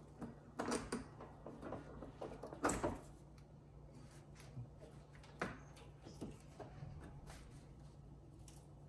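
Irregular clicks and metallic clanks of a 13 mm wrench working the battery cable terminal nut in a car's engine bay, with the loudest clanks about one second, three seconds and five and a half seconds in.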